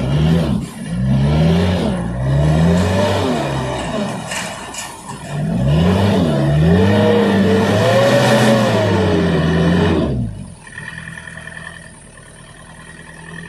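Mitsubishi dump truck's diesel engine revving hard under load as the truck struggles through deep mud, its pitch rising and falling in two long surges. About ten seconds in it drops off to a quieter, steady idle.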